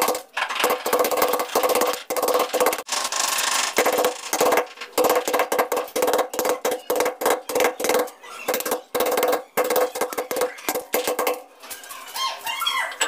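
A metal hand tool scraping and chiselling against a ceramic-tiled wall in quick repeated strokes, each stroke carrying a steady squealing pitch; the strokes stop a little before the end.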